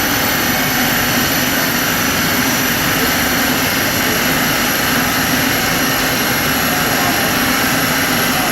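Steady, even rush of machinery in a rolling road cell, with no revving, pops or crackles.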